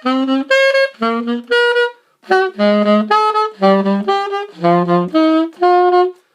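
A 1930 Martin Typewriter alto saxophone played in a string of separate notes, many leaping between a low note and the one an octave above, with a brief break about two seconds in.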